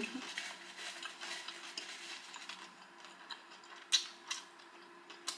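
Quiet eating sounds at the table: faint mouth noises while chewing and light clicks of a dish. There is a sharper click about four seconds in as a hand reaches into a sauce bowl, and another near the end.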